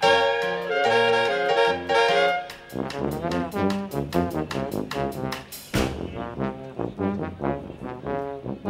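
Jazz orchestra playing live: saxophones, trumpet, trombone and tuba over piano, double bass and drums. Full brass-and-reed chords are held for the first couple of seconds, then busier moving lines. A sharp hit comes about six seconds in, after which the bright top end drops away.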